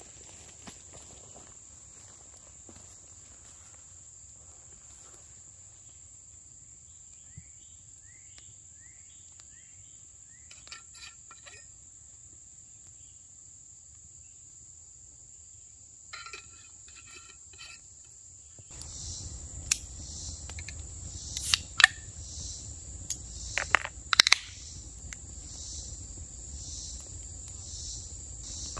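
Steady high-pitched insect chorus with a few faint bird chirps. About two-thirds of the way through, the background grows louder, the insect drone starts to pulse, and a handful of sharp clicks and knocks cut in.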